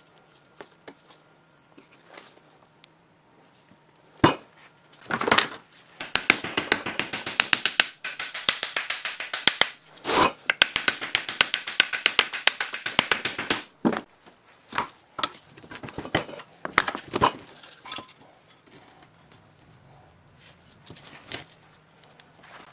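Hand work on the metal parts of an electric motor. A sharp knock comes about four seconds in, followed by about nine seconds of rapid scraping with dense clicking, then a few scattered clicks.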